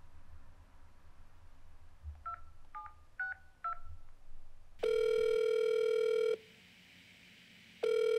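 Smartphone keypad dialing tones, four short two-note beeps, followed by the ringing tone of the outgoing call: one long steady buzzy tone, then a second starting near the end.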